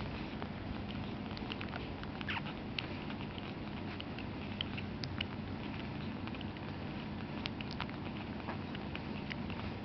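Ten-day-old American Cocker Spaniel puppies suckling: a steady run of small wet clicks and smacks, with now and then a faint squeak.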